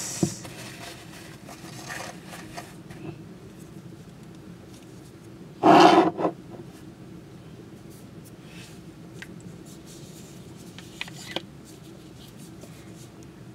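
A glass and a small hand-held espresso maker being handled on a tabletop, with one louder scrape or knock of the glass about six seconds in and a few light clicks later, over a faint steady hum.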